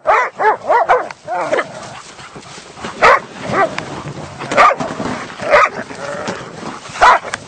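A pack of hunting dogs, Kazakh tazy sighthounds, barking and yelping: a quick run of about five short barks at the start, then single loud barks about once a second.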